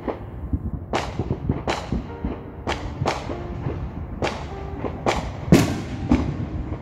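Fireworks going off in an irregular string of sharp bangs and cracks, about one to two a second, with background music underneath.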